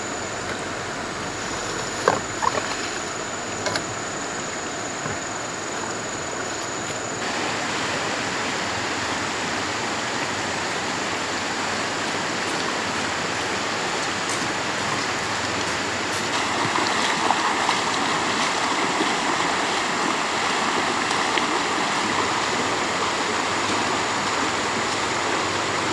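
Steady rush of running water, with a few sharp knocks a couple of seconds in and a thin high whine that stops about a quarter of the way through; the water grows louder and fuller about two-thirds of the way through.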